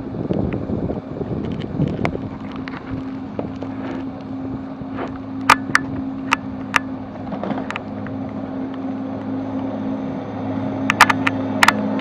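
A vehicle's engine running with a steady low hum under the noise of heavy rain and wind buffeting the microphone, which is strongest in the first couple of seconds. A few sharp clicks come around the middle and again near the end.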